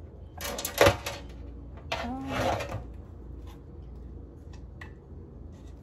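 Refrigerated biscuit can bursting open at its seam with a sharp pop about a second in, then a second, longer rustling noise about two seconds in.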